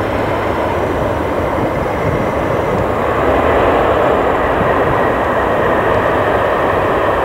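Boeing 767-300 jet engines heard during the landing rollout just after touchdown: a steady, loud rushing noise that swells a little about three seconds in.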